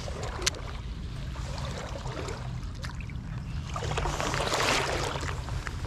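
Shallow creek water running steadily, with a sharp click about half a second in. A louder rush of water-like noise comes about four seconds in and lasts over a second.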